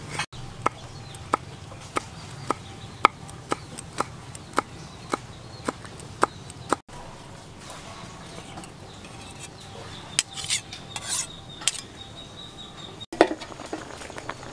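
Kitchen knife slicing on a wooden chopping board, a sharp knock about every half second for several seconds. After that, scattered light clicks and taps.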